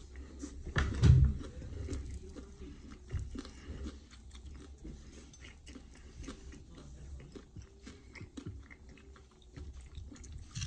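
A person chewing and biting into barbecue chicken with close, wet mouth clicks and smacks, with a louder burst about a second in.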